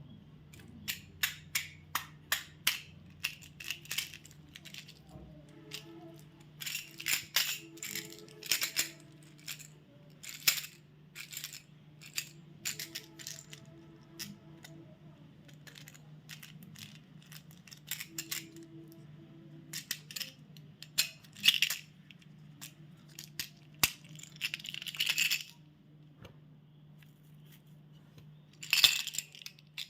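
Chocolate and candy packaging being handled: sharp clicks and short crackly bursts of wrappers and packets, some in quick runs and some spaced out, over a faint steady hum.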